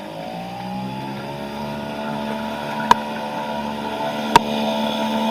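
Nissan 3.5 hp two-stroke outboard motor running; its pitch rises over the first second or so as it picks up speed, then holds steady. Two sharp knocks sound over the engine, about a second and a half apart.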